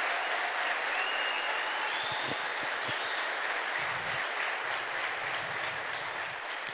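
Audience applauding, the clapping slowly dying down near the end.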